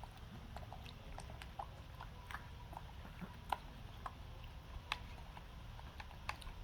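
A baby monkey eating: faint, irregular little clicks and smacks of chewing, over a low steady hum.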